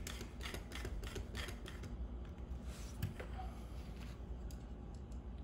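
Screwdriver turning the mounting screws of a plastic dog-door frame, giving a quick run of light clicks through the first two seconds, then a few scattered taps.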